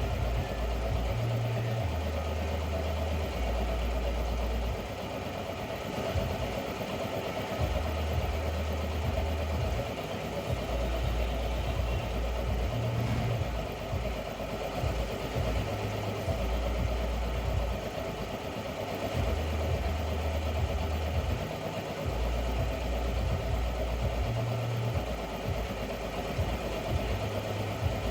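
Small air compressor running steadily, supplying air to a hot-air plastic welder, with an even hum and the hiss of the blown air.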